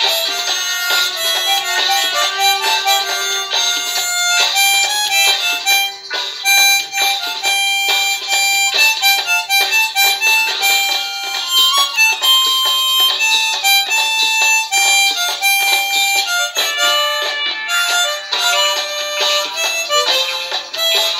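Harmonica played solo: a melody of quick stepping notes, often sounding several reeds at once, with some longer held notes.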